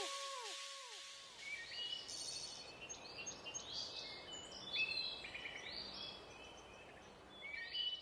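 The song's last note dies away in a few repeating echoes, each sliding down in pitch, within the first second. Then comes faint forest ambience with small birds giving short, high chirps every half second or so, in a cluster near the end.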